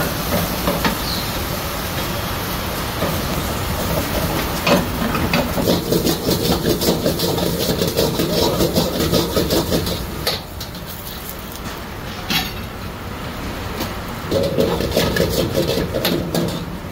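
Steel ladle clanking and scraping against a wok in a quick, even rhythm, in two runs, as egg and diced vegetables are stir-fried, over the steady rush of a gas wok burner. There are a few single sharper clanks of the ladle on the wok.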